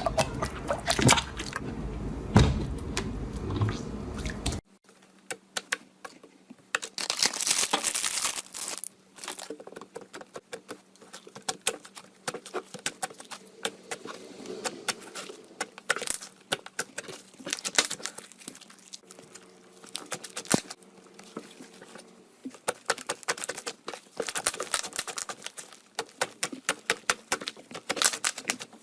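Slime being squeezed and pressed by hand, giving dense runs of small crackling clicks and pops. The sound changes abruptly about five seconds in and comes in uneven bursts after that.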